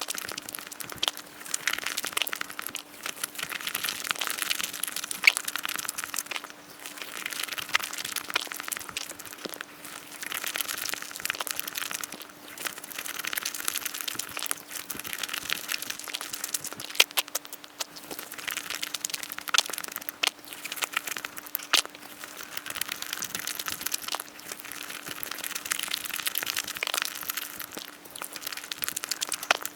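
Close-miked eating sounds of crepes with Nutella: chewing and wet, sticky mouth noises, a steady stream of small clicks and crackles that swells and fades in waves.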